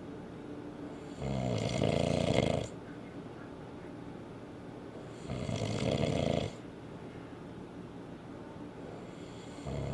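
A man snoring very loudly in his sleep: two long rasping snores about four seconds apart, a third starting right at the end, with quieter breathing out in between.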